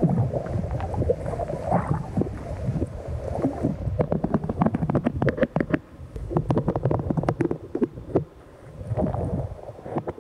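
Underwater sound in shallow surf: churning, gurgling water with a low rumble, and from about four seconds in a quick run of sharp clicks and taps.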